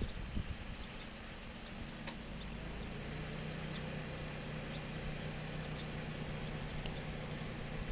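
Open-air field ambience with a low rumbling haze, joined about three seconds in by a steady engine drone that carries on, with faint short high chirps now and then. A sharp knock comes at the very end.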